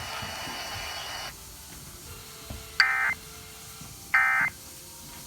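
Emergency Alert System end-of-message data bursts: two short, harsh digital tone bursts about a second and a half apart, after a second or so of faint hiss, marking the close of the alert test.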